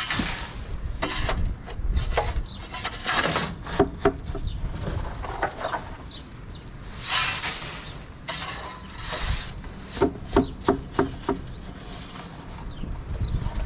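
Wet corn and fines being dug out of the boot at the bottom of a grain elevator leg: irregular scraping and scooping with knocks and clinks against the metal housing, and a quick run of clinks about ten seconds in.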